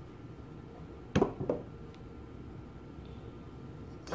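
A heavy steel Linotype knife block being set down and turned over on a wooden workbench: a sharp knock about a second in, a smaller knock just after, and a light click near the end.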